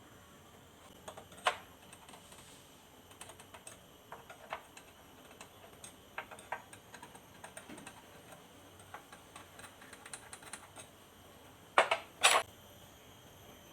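Scattered light clicks and taps, with a sharper knock about a second and a half in and a few louder knocks near the end.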